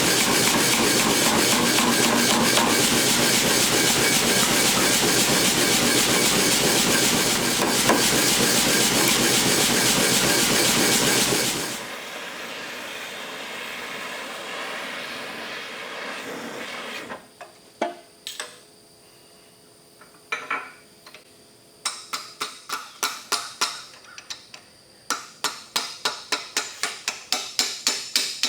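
A loud, steady rushing noise cuts off about twelve seconds in. After a lull, a hammer strikes mild steel on an anvil with a high ring: a few single blows, then quick runs of about three blows a second.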